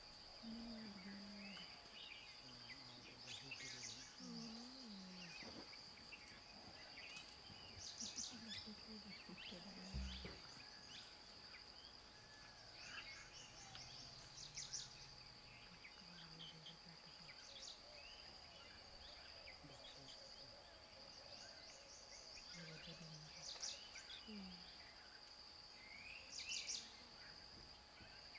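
Quiet forest ambience: a steady high-pitched insect drone with scattered bird chirps and short trills over it. Faint low voices come now and then, and a single dull thump about ten seconds in.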